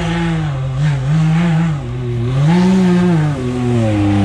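Can-Am Maverick X3 side-by-side's turbocharged three-cylinder engine revving up and down repeatedly as the machine climbs a snowy trail. The revs surge at the start, waver through the middle, surge again after about two and a half seconds, then settle lower as it passes close by near the end.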